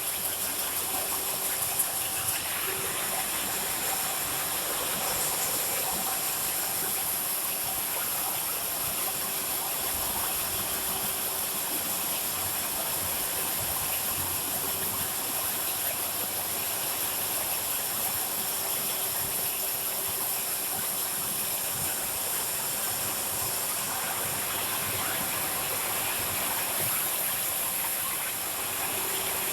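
Automatic can body welding machine running continuously: an even, steady machine hiss with a faint hum that comes and goes.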